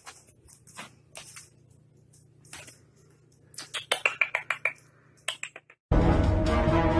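French bulldog puppy's claws clicking on a hard plank floor as it walks: a scatter of sharp ticks, with a quick run of them a little past the middle. Loud music cuts in near the end.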